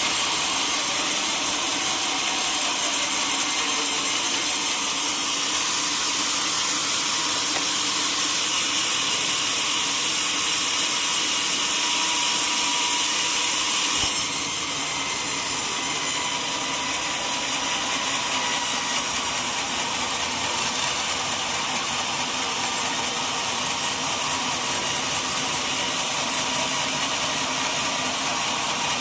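Sawmill saw cutting through a teak log: a steady hissing sawing noise. A sharp click about halfway through, after which the sound drops a little.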